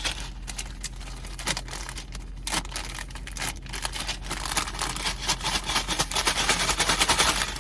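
Crinkly plastic snack bag being handled and rustled, the crackling growing denser and louder over the last few seconds.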